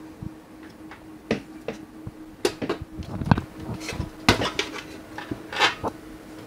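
Clicks and knocks of a metal lighting fixture's housing being handled on a workbench as its circuit board goes back in: irregular knocks, the loudest a dull thump about three seconds in, over a faint steady hum.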